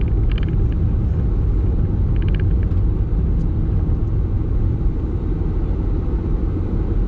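Steady low rumble of engine and tyre noise inside a moving car's cabin, with a couple of brief faint ticks near the start and about two seconds in.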